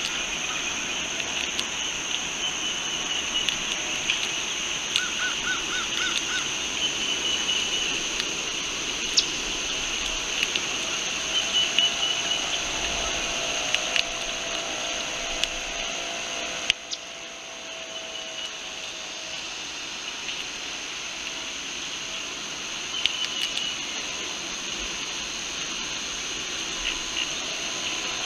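Steady insect chorus, a high buzzing in two bands, with scattered light clicks and a short run of pips about five seconds in. The level drops suddenly about two-thirds of the way through.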